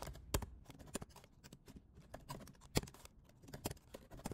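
Typing on a computer keyboard: a run of irregular key clicks, with a few sharper strokes standing out.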